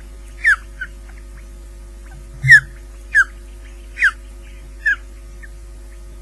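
Ospreys at the nest giving six short, sharp chirps, each slurring downward in pitch, the loudest about two and a half seconds in, over a steady low hum.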